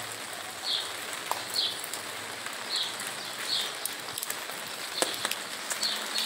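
Steady rain falling on a wet street, with scattered sharp taps of drops hitting an umbrella overhead. A short high chirp repeats about once a second.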